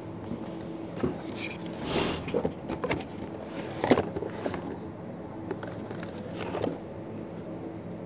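Cardboard boxes of tea glasses being handled: scattered scrapes, rustles and knocks of the packaging, with a sharp knock about four seconds in, over a steady low hum.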